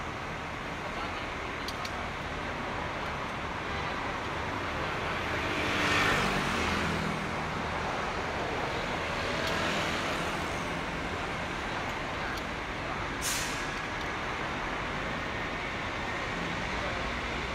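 Heavy vehicle engine running steadily, swelling louder about six seconds in and again near ten, with a short sharp hiss of released air a little after thirteen seconds.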